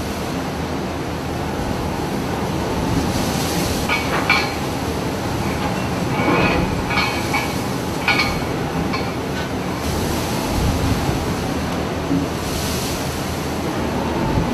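Storm wind on the microphone and heavy seas breaking around a trawler's bow, a steady rushing noise, with a few short high squeals between about four and nine seconds in.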